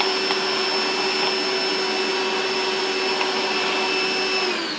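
A loud electric motor running at a steady whine, then switched off about four and a half seconds in, its pitch falling as it winds down.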